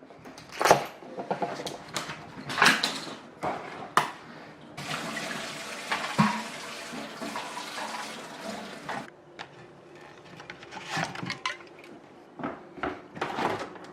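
Knocks and clatter of objects being handled, with running water for about four seconds in the middle, starting and stopping abruptly, as from a tap turned on and off.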